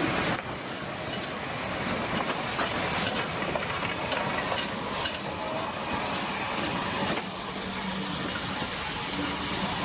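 Steam locomotive moving slowly past with a steady hiss of steam.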